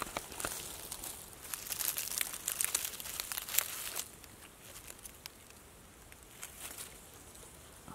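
Dry fallen leaves and twigs crackling and rustling as a hand reaches into the forest floor and pulls up a small mushroom. The crackling is dense for the first four seconds, then thins to a few faint ticks.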